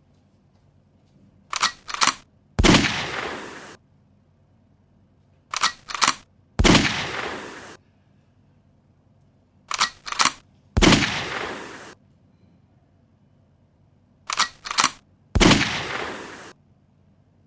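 Gunshot sound effect on a loop: three quick clicks, then a single loud gunshot with a ringing, decaying tail. The cycle repeats four times, about every four seconds.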